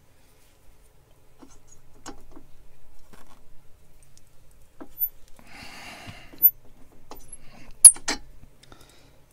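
Small metal lathe parts being handled and fitted by hand: scattered light clicks and taps, a short rustling scrape about halfway through, and two sharp metallic clicks in quick succession near the end, the loudest sounds.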